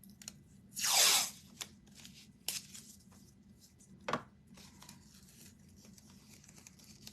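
A strip of crafting tape pulled and torn from the roll in one quick rip, followed by a few light clicks and taps of handling on the work table.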